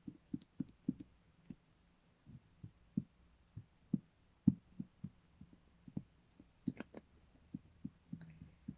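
Soft, irregular taps and knocks, two or three a second, some with a sharper click, from things being handled on a table.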